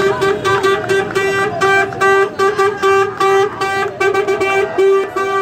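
A vehicle horn honking in a rhythmic pattern of short and longer blasts, about two a second, one steady pitch cutting on and off: celebratory honking.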